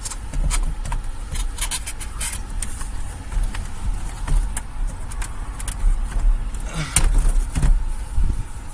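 Scattered clicks, taps and scrapes of plastic interior trim and wiring being handled inside a car, over a low rumble, with a cluster of knocks near the end.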